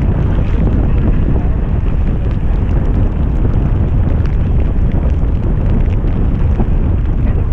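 Strong wind buffeting the microphone in a gale at sea: a loud, steady low rumble, with faint small ticks above it.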